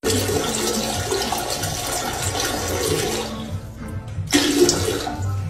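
A toilet flushing: water rushes steadily for about three seconds, then dies down. About four and a half seconds in there is a short, louder sound.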